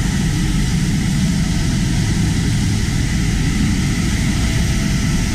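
Steady jet engine noise on an airfield flight line: an even, loud rush with a faint high whine and no change in pitch.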